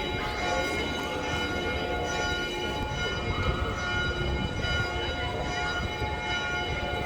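Church bells ringing in a steady peal, their overlapping tones held throughout, over low street rumble and the murmur of people.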